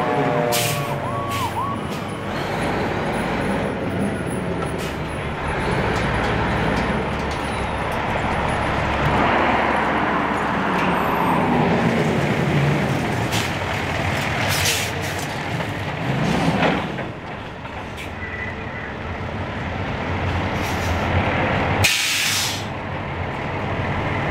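Fire trucks' diesel engines running as the apparatus pulls up and positions, with a siren winding down in the first second. Several short air-brake hisses cut through, the longest and loudest near the end.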